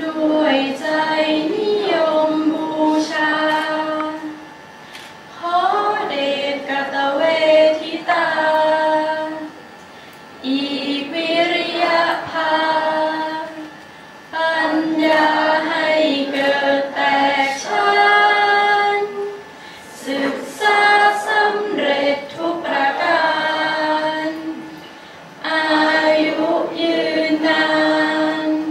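A group singing together: a slow Thai song in long, held phrases of about four to five seconds, with short pauses between them.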